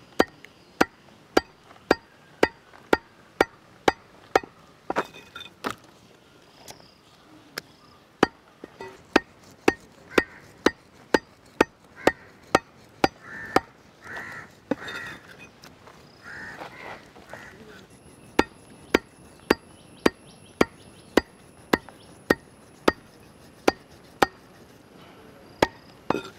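Stingray meat being chopped with a knife: steady, sharp chopping strikes about two a second, with a pause of a few seconds midway.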